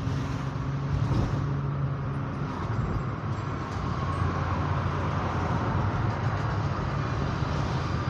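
Steady road and engine noise heard from inside the cabin of a car driving along a city street.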